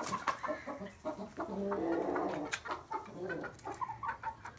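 Several hens clucking and calling in short bursts, with a few scratchy clicks among them; the hens are wary of being let out of their room.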